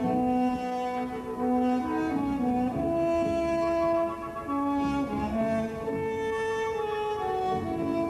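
Orchestral music: a slow melody of held notes on horns and strings.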